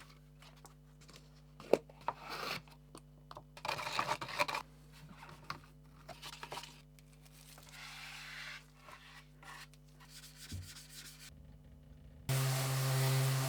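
Wood being worked by hand in irregular rubbing and scraping strokes, with a sharp knock about two seconds in. Near the end an electric power tool starts suddenly and runs steadily, much louder than the hand strokes.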